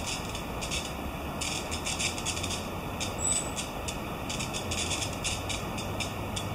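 Steady rush of the Uji River's fast-flowing water, with a low traffic-like hum underneath and irregular quick, soft crackles high in pitch.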